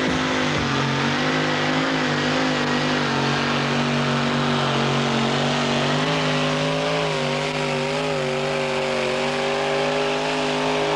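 Supercharged engine of a two-wheel-drive pulling truck running hard under load as it drags a weight-transfer sled. It holds a loud, steady note that wavers slightly and climbs a little about six seconds in.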